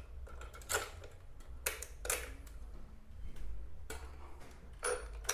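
Metal fan parts clinking and knocking now and then, about five separate sharp knocks, as a screw is fitted through the fan's mounting bracket and base.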